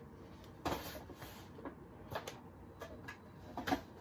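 Parts of a new portable air cooler being handled while it is unboxed: a few scattered knocks and clicks, the loudest about two-thirds of a second in and again near the end.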